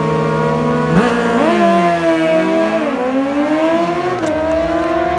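Two drag-racing sport bikes, one a Suzuki GSX-R, held at steady revs on the start line, then launching about a second in and accelerating hard away down the strip. Engine pitch climbs, then drops sharply at a gear change about four seconds in.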